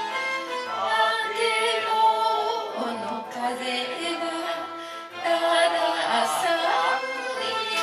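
Karaoke backing music for a Japanese popular song, with a woman singing over it through a PA system. The sound dips briefly about five seconds in.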